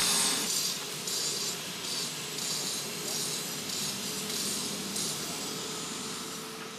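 Smooth stones being rubbed and shifted into place by hand, a gritty scraping about twice a second that stops about five seconds in.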